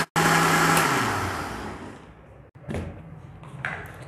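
Electric blender running at full speed, grinding green chillies, onion, garlic, vinegar and oil into a chutney, then switched off about a second in, its motor hum falling in pitch as it spins down. A couple of light knocks follow near the end as the blender jar is handled.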